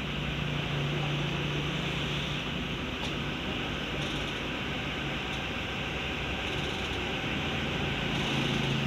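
Steady mechanical background hum and hiss, with a low drone that grows stronger about a second in and again near the end.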